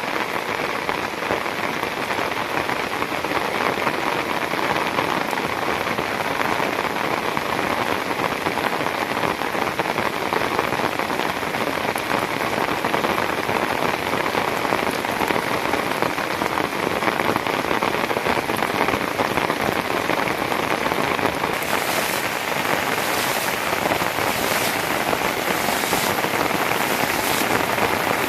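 Steady rain falling, an even dense hiss. About three-quarters of the way through, a brighter, crisper layer with irregular pulses joins in.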